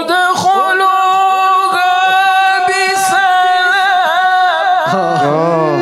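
A male Quran reciter holds one long, very high note of a chanted recitation, steady with slight wavers. About five seconds in, the note slides down and a second, lower voice comes in.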